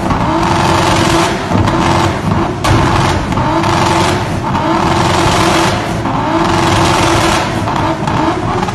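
Audi S4 B5's twin-turbo V6 revved hard and held high during a burnout, rear tyres spinning in the smoke. Sharp cracks sound now and then over the engine.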